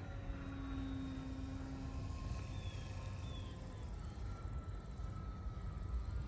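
Distant radio-controlled model airplane's motor humming steadily in flight, fading after about two and a half seconds, over a low rumble.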